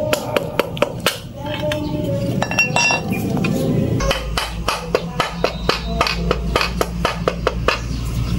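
Quick, repeated metallic clicks and clinks, several a second, as the crankshaft of a small 5 hp gasoline engine is worked by hand with a bar and socket, moving the piston and connecting rod. A low rumble comes in about four seconds in.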